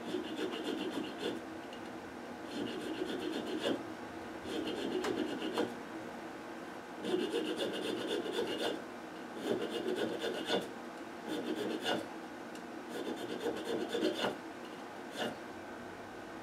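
Small hand file rasping on the end of a fret's tang in about seven bursts of quick strokes, each about a second long, filing off the rest of the tang extrusion. Near the end comes one sharp click as end nippers cut the fret wire.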